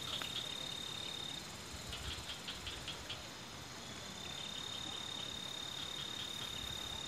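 An insect trilling in one steady high note, which breaks off about a second in and starts again after a few seconds. Short ticking clicks come in the gap, over a steady background hiss.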